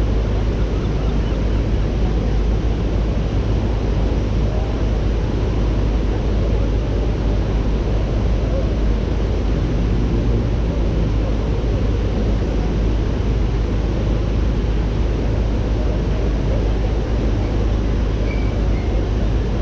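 Steady rush of water pouring over a broad stepped river weir, an unbroken low noise.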